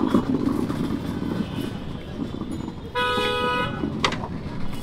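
Street traffic with a vehicle horn honking once, briefly, about three seconds in, followed by a sharp click.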